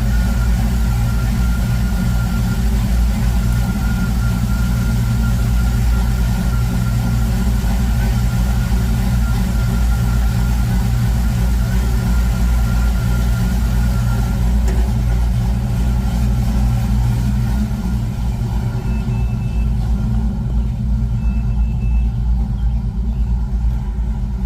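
Car engine running steadily with a deep, even rumble, and a thin high whine over it that fades out a little past halfway.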